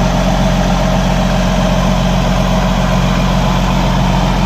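John Deere 4440 tractor's six-cylinder diesel engine running steadily at idle, with a steady low hum and no change in speed.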